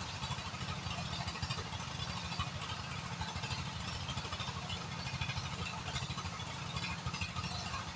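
An engine running steadily, with a fast, even low throb over a steady hiss.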